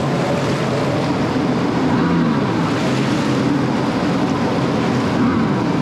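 Jet ski engine running at low revs, its pitch shifting a little now and then as it holds against a strong flood current, over the rush of water and wind on the microphone.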